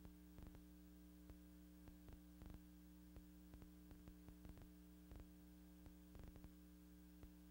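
Near silence: a faint steady electrical hum with scattered faint clicks, the background noise of a silent archival film transfer rather than any sound from the factory.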